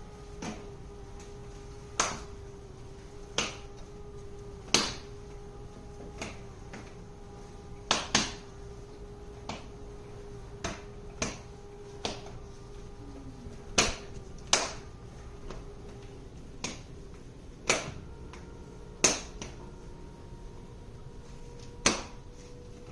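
Petkit self-cleaning litter box making sharp, irregular clicks, about one every one to two seconds, over a faint steady mechanical hum.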